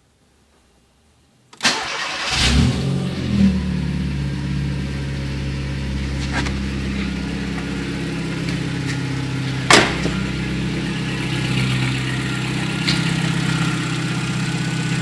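VW Gol's 1.0 8-valve AT engine, already warm, being started: the starter cranks briefly about a second and a half in, the engine catches and flares up, then settles into a steady idle. One sharp click about ten seconds in.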